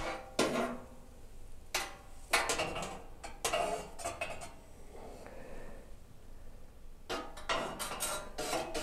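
Metal clinks and rattles of wire oven racks being knocked by a hand and a gas leak detector's gooseneck probe inside an oven: scattered sharp knocks, coming thicker near the end as a rack is gripped.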